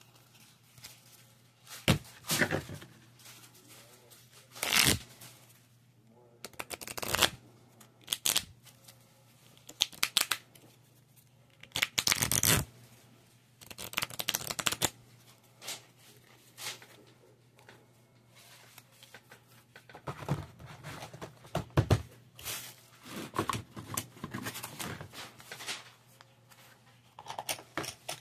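A deck of game cards being handled in the hands: fanned, slid through and squared into a pile. It comes in irregular short bursts of flicking and scraping, with a few sharp taps and brief pauses between.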